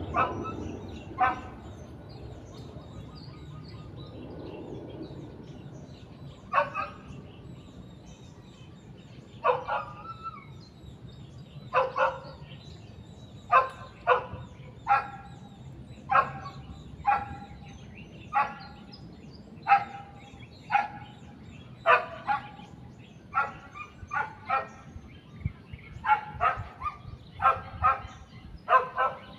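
A dog barking repeatedly, in single barks and short runs. The barks are sparse at first and come faster and closer together in the second half.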